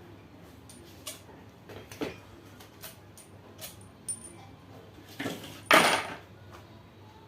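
Metal tools and engine parts being handled and set down: a few separate light clinks with a ringing metallic edge, then a louder clatter near the end.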